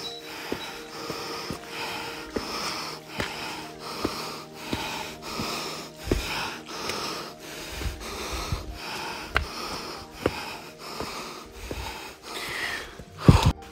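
A hiker breathing hard with quick, rhythmic breaths about twice a second, panting from the exertion of the climb. There are a few low thumps, with a sharp loud one near the end.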